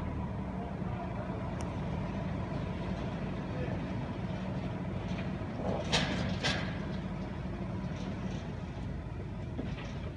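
Engine of a yellow loader tractor running steadily, with two sharp clanks about six seconds in.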